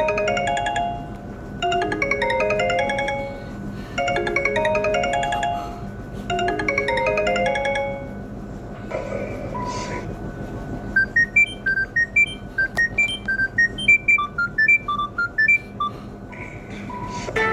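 Phone ringtones played one after another. A short bright melody repeats four times, then a run of quick, short high notes follows, and a new tune starts near the end.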